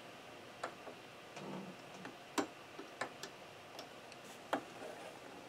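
Light, irregular clicks and taps from a Singer sewing machine's built-in needle threader and needle-area parts being worked by hand, as the threader is tried again on the needle. Sharpest clicks come about two and a half, three and four and a half seconds in.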